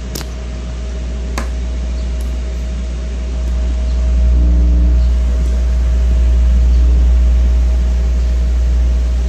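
Loud, low, steady mains hum from a powered Megabass speaker system, with a faint higher steady tone over it, swelling louder in the middle; two small clicks come near the start. The technician suspects the power supply, its poor filtering letting ripple into the DC.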